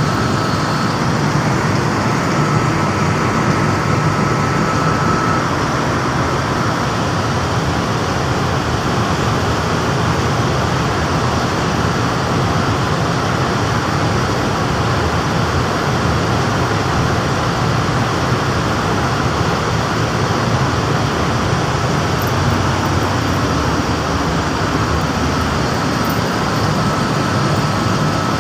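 Air-conditioning plant machinery running steadily, a loud even mechanical noise with a faint constant whine.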